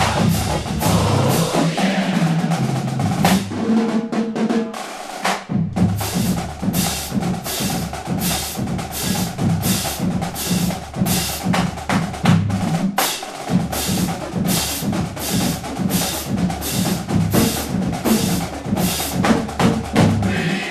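Marching drumline cadence, snare and bass drums playing a fast, driving rhythm, with a short break about five seconds in.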